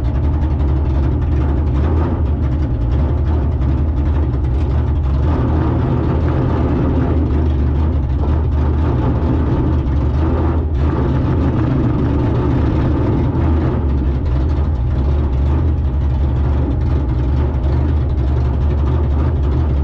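Car engine running steadily: a constant low rumble with no revving.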